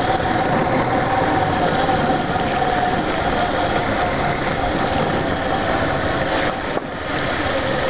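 Yamaha Factor 150 motorcycle's single-cylinder four-stroke engine running steadily while riding, with a brief dip in level near the end.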